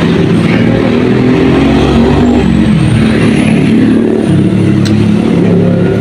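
Loud, steady rumble of a motor vehicle's engine running close by.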